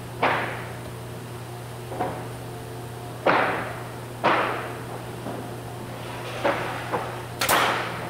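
Sharp knocks on a wooden stair assembly as its parts are fastened: about seven, irregularly spaced a second or so apart, each with a short ringing tail. A steady low hum runs underneath.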